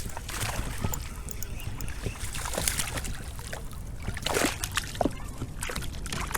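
Water splashing and sloshing at a kayak's side in irregular bursts, the loudest about four seconds in, as a hooked bass is fought near the boat.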